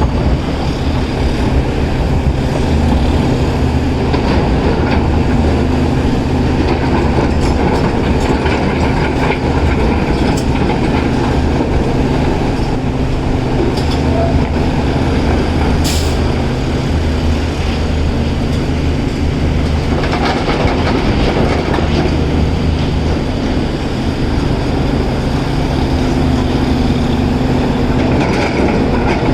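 Caterpillar 336 excavator's diesel engine running steadily, a constant low hum under continuous mechanical noise, with one sharp click about sixteen seconds in.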